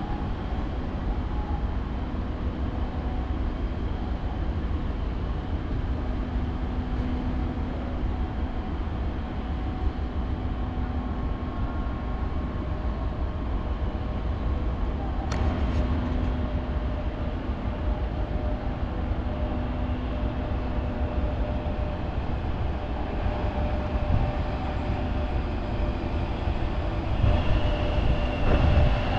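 A train running on the rails: a steady low rumble with faint steady whines over it, a single sharp click about halfway through, and a higher whine joining near the end.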